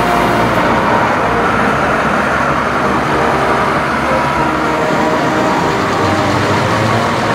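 Heavy diesel farm machinery running steadily: a dense, continuous mix of engine noise.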